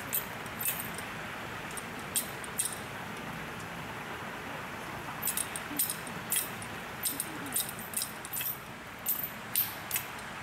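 Irregular, light, high-pitched clinks over a steady background hiss, coming thicker and faster from about halfway through.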